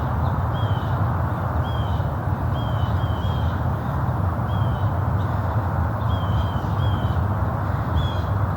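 A small songbird calling over and over, short high calls about once or twice a second, over a steady low rumbling background noise.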